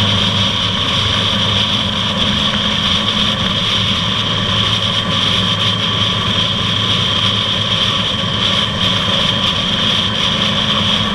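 Honda ST1300's V4 engine running at a steady cruising speed, its even drone mixed with wind rush; the pitch stays level throughout.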